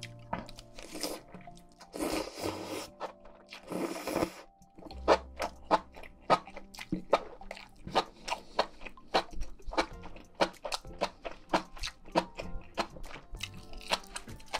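Close-miked eating: a few longer wet mouth sounds in the first seconds, then steady crunchy chewing with sharp clicks about twice a second. Soft background music plays underneath.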